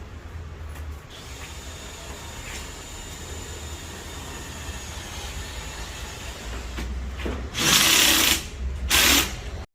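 Power tool at work during ceiling anchor installation: a low steady hum with a faint high whine, then two loud short bursts of the tool near the end, about a second apart.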